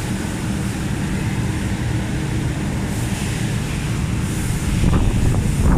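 Steady droning and rushing noise of factory fans, growing louder and buffeting near the end.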